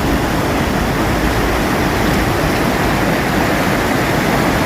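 Glacier-fed mountain stream rushing fast, a steady loud wash of running water.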